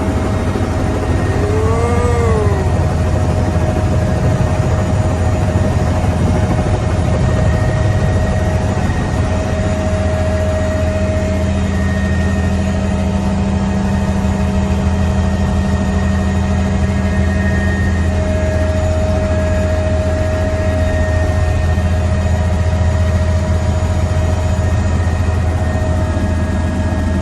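Helicopter in flight heard from inside the cabin: a loud, steady drone of engine and rotor with a steady high whine over it. A short tone rises and falls once about two seconds in.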